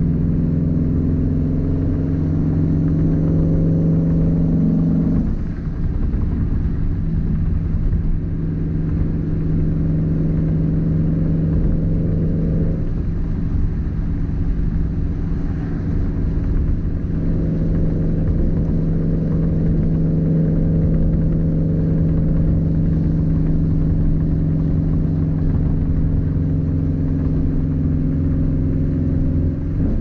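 2004 Subaru WRX STI's turbocharged flat-four engine and exhaust, heard inside the cabin while cruising: a low, steady drone. The even note breaks up and drops off briefly about five seconds in and again from about thirteen to seventeen seconds, then settles back to the steady drone.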